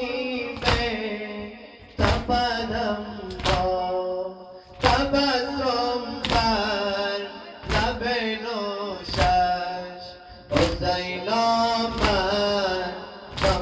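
A male reciter chanting a Persian noha (mourning elegy) through a microphone, while the congregation beats its chests in unison in matam, with a sharp thud about every second and a half.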